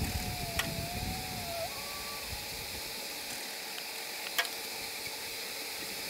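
A large honey bee swarm buzzing steadily as it moves into the hive boxes, with a couple of faint clicks.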